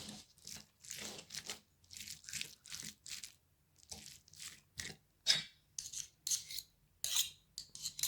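A fork mashing and stirring a sticky paste of dried figs in a plate, in repeated short scraping strokes about two a second, with the fork rubbing against the plate.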